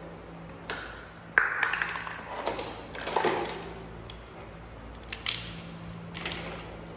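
Hard plastic toys clattering and knocking together in a toy dump truck's bed as a baby monkey rummages through them, in about five short bursts of clicks and rattles.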